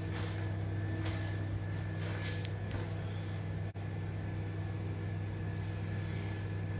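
Steady low hum inside an ÖBB Nightjet couchette coach, its onboard ventilation and electrical equipment running, with a faint steady high tone over it.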